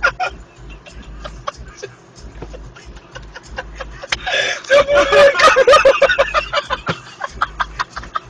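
People laughing hard in rapid, breathless bursts, softer at first and much louder from about four seconds in.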